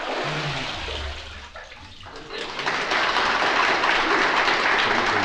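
Water in a baptistery pool splashing and sloshing as a boy is immersed and lifted back out. About two and a half seconds in, a congregation starts applauding, and the applause grows into the loudest sound.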